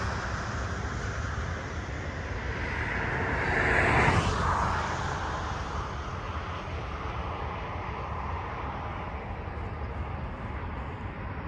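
A vehicle passes by. It grows louder to a peak about four seconds in, then falls in pitch as it fades away over a steady low traffic rumble.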